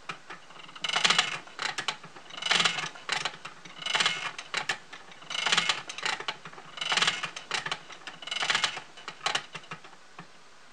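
Wooden flyer spinning wheel being treadled while spinning angora yarn: a rhythmic mechanical clatter that comes round about once every second and a half, six times, with lighter clicks between, stopping shortly before the end.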